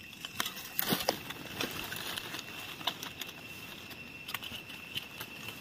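A small knife scraping and trimming the dirty base of a bolete mushroom's stem, with soft rustling and scattered light clicks from handling over dry leaves, the strongest about a second in. A faint steady high-pitched tone hangs in the background.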